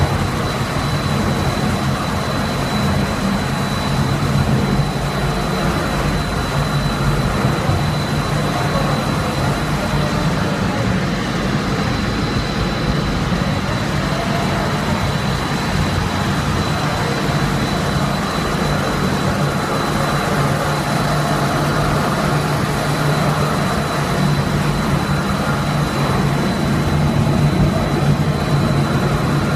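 Machinery of a running snack pellet extrusion and frying line: motors, conveyors and a rotating drum making a steady, loud mechanical drone with a low hum and a thin, steady high whine over it.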